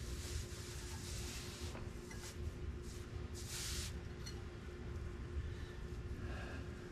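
Faint clicks and rustling of hands fiddling a small metal brake pad retaining clip into a scooter's front disc brake caliper, with a couple of short hissy rustles, over a steady low hum.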